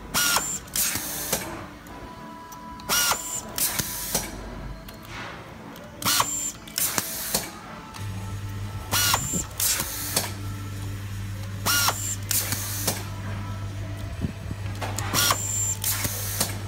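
Handheld automatic screw-feeding screwdriver driving screws into tape-measure belt clips. Each screw gives a short burst of noise with a brief whine, about six times, roughly every three seconds. A low steady hum comes in about eight seconds in.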